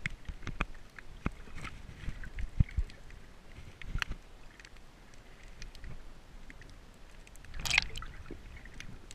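Underwater sound picked up by a camera held below the surface by a snorkeler: muffled water movement with a low rumble in the first few seconds and scattered sharp clicks. There is a short, louder swish near the end.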